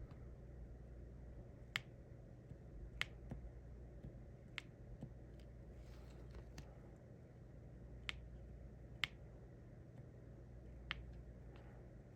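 Light, sharp clicks of a diamond-painting pen tapping resin drills onto the canvas, about seven at irregular gaps of one to two seconds, over a faint steady room hum.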